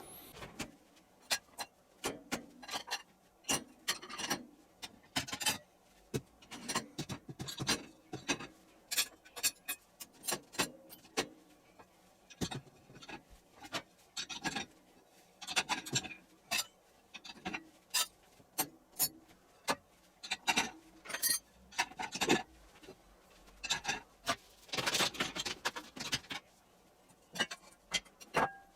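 Dishes being loaded into the racks of a compact dishwasher: irregular clinks and knocks of plates, pans, bowls and mugs being set in place, with a longer scraping rub near the end.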